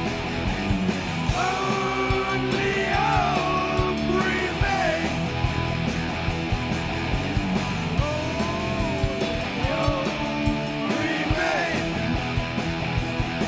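Rock band playing live: distorted electric guitars, bass and drums, with a melodic lead line that bends and slides in pitch over the top.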